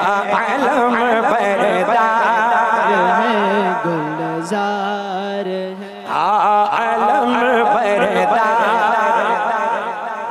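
Manqabat, an Urdu devotional poem, sung in long drawn-out notes with heavy vibrato over a steady low held note. The singing dips briefly just before six seconds in, then comes back with a rising glide.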